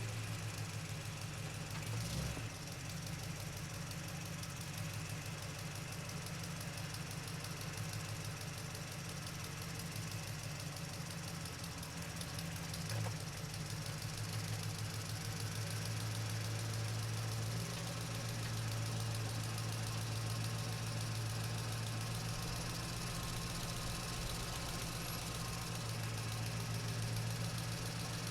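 Truck engine running steadily at low speed while driving, a low, even pulsing hum, with a short knock about two seconds in and another about thirteen seconds in.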